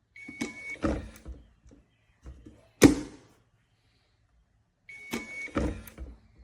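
Small biometric pistol safe being worked by hand: a short electronic beep with clicks and a knock, then a single sharp snap about three seconds in, the loudest sound. About five seconds in comes another short beep, followed by more clicks and knocks.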